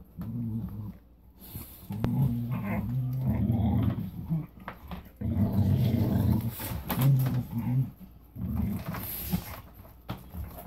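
Carolina Dog growling over its raw meat in several long, low rumbles with short breaks, with faint clicks of its teeth gnawing partially frozen meat.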